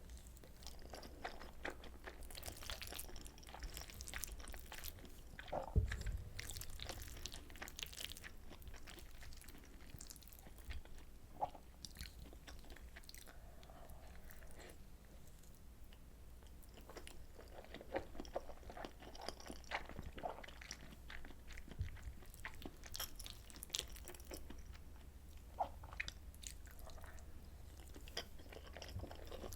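Close-miked chewing of soy sauce butter egg rice, with many small clicks scattered through it. There is a dull thump about six seconds in.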